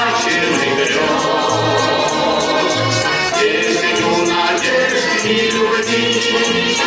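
Music: an instrumental passage of a pop song, with sustained chords over a steady beat and a shaker- or tambourine-like rhythm.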